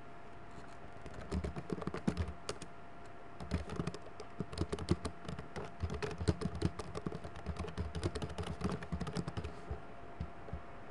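Typing on a computer keyboard: rapid runs of key clicks, with a short pause about three seconds in, stopping shortly before the end. A faint steady hum sits underneath.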